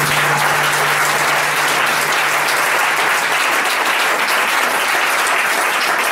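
Theatre audience applauding steadily. A held low note left over from the song fades out in the first three seconds or so.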